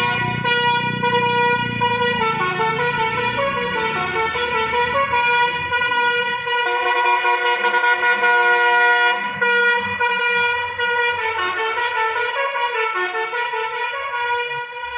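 Basuri telolet horn on an intercity bus playing a tune: a pitched, multi-tone horn whose notes step up and down every fraction of a second. A low rumble runs beneath it for the first few seconds.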